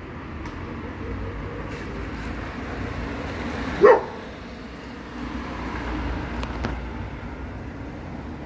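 A dog barks once, a single short bark about four seconds in, over a steady low rumble.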